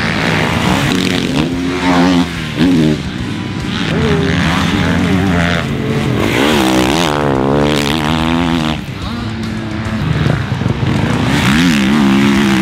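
2021 Kawasaki KX450 motocross bike's single-cylinder four-stroke engine at full race pace, revs rising and falling repeatedly as the throttle opens and closes. It drops back briefly about nine seconds in.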